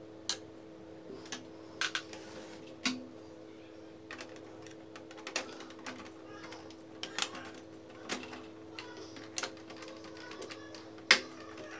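Irregular sharp plastic clicks and knocks as the HP Color LaserJet printer's cover panels are handled and fitted against its metal frame, the loudest knock near the end, over a steady low hum.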